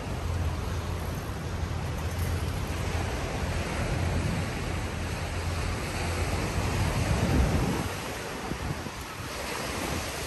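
Steady rushing noise of wind and surf, with low wind buffeting on the microphone that swells briefly about seven seconds in.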